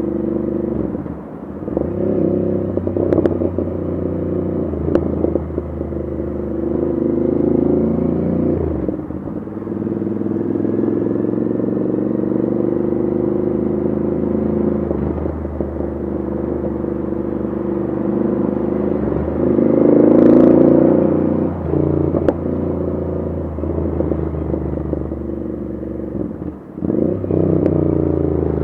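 Royal Enfield 650 parallel-twin engine through an aftermarket Diablo exhaust, riding in city traffic: the exhaust note rises and falls with the throttle, dips several times as the throttle closes for gear changes, and is loudest about twenty seconds in. A few sharp pops and crackles from the exhaust come on the overrun.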